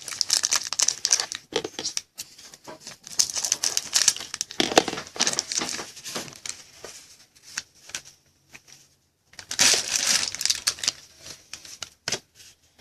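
Plastic wrapper of a trading-card pack being torn open and crinkled, in several bouts of crackling with short pauses between.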